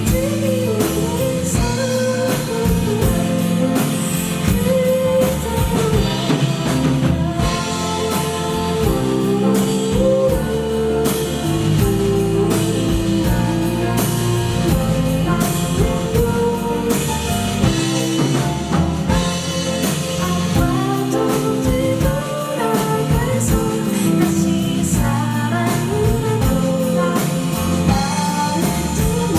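Live pop-ballad band performance: a singer's voice over drum kit, guitar and other instruments, with a steady beat, heard through an audience recording in a concert hall.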